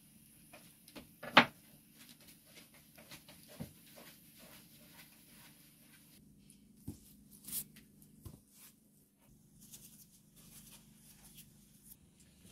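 A metal dough scraper knocking against a wooden board as bread dough is cut into portions, with one sharp knock about a second and a half in and a few softer knocks later. Between them come light taps and handling of the dough on the board.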